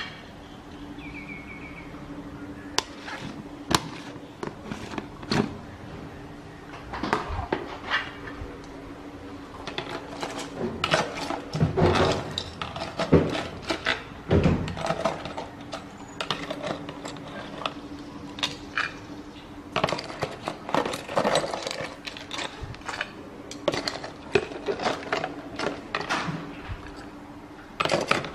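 Large plastic jars of salted crab in brine being handled and tipped on a stone countertop: scattered knocks, clicks and plastic crackles. A steady low hum runs underneath.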